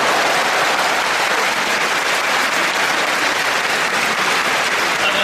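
Large arena audience applauding steadily, a dense even spatter of clapping, in acknowledgement of a scored point.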